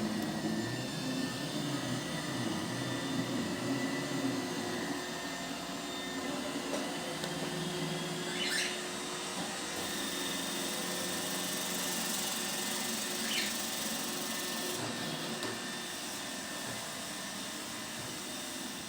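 iRobot Roomba robot vacuum running: a steady whirring hum of its suction motor and brushes, with two brief high chirps, one about halfway through and one a few seconds later.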